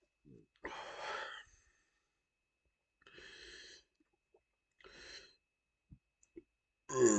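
A man breathing heavily in three noisy breaths, the first the loudest, as he builds up to a burp after chugging Pepsi. A loud, low burp begins right at the end.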